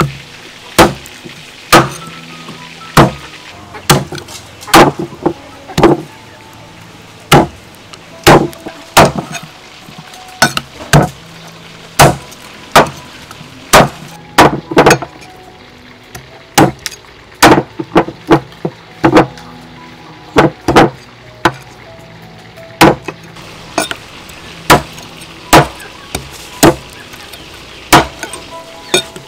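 Meat cleaver chopping raw fish on a round wooden chopping block: sharp, irregular strikes, about one or two a second, some in quick pairs, over faint background music.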